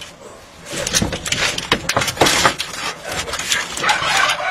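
Two cats scuffling on a corrugated roofing sheet: claws scrabbling and scraping over the rough surface, with irregular knocks and scratches. It is quieter for the first half-second, then becomes a dense, busy scrabbling.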